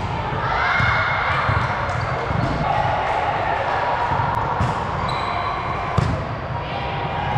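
Indoor volleyball play in a gym hall: scattered sharp ball hits and thuds on the court, with players' voices and echo from the hall; the loudest knock comes about six seconds in.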